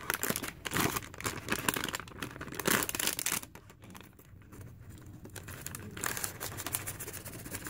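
Plastic MRE bag crinkling and rustling as the entree pouch is worked out of it by hand. Busy crinkling for about the first three seconds, then softer, scattered rustles.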